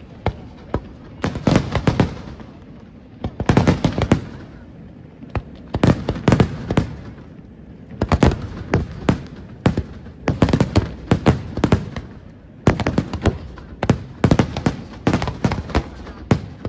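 Aerial firework shells bursting in quick clusters of sharp bangs, a fresh volley about every two seconds, running almost without break over the last few seconds.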